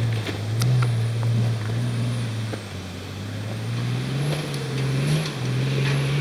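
Four-wheel-drive engine running at low revs as it crawls up a rutted dirt hill track, a steady drone that lifts slightly about four seconds in, with a few sharp knocks and rattles from the ruts.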